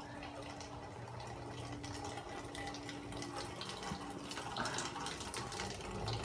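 Pool water trickling and splashing, with a steady low hum underneath.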